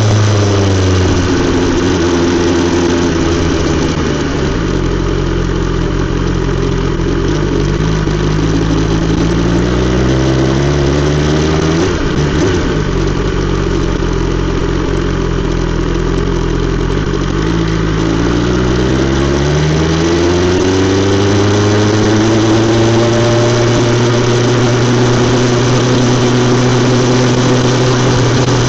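BMW S 1000 XR's inline-four engine running through an Akrapovic exhaust. Its pitch falls over the first few seconds, rises and falls again through the middle, then climbs and holds steady for the last third.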